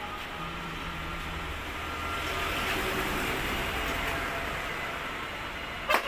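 Street traffic: a steady hum of passing vehicles that swells about halfway through, with a sharp smack right at the end.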